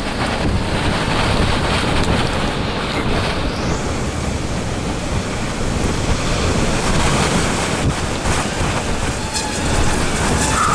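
Strong tornado winds blowing across the microphone: a loud, steady rush of wind noise.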